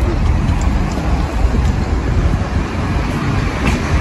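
Wind buffeting the microphone: a steady low rumble, with faint outdoor street noise above it.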